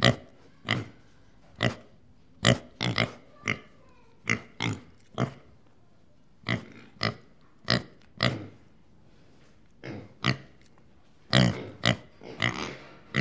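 Piglets grunting: short, sharp grunts at irregular intervals, with several close together near the end.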